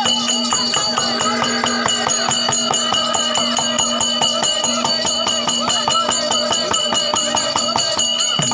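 Therukoothu ensemble music: a mridangam drum beating a fast even rhythm, about four to five strokes a second, over a steady held drone, with a wavering melody line and a jingling rattle on top.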